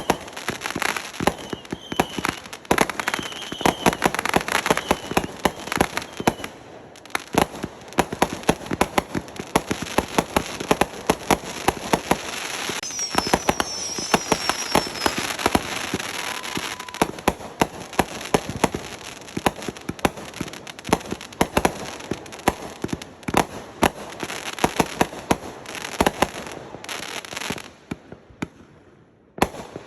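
Fireworks going off in rapid succession: dense crackling and popping bangs, with a few short whistles mixed in. The barrage dies down briefly near the end, then the bangs start again.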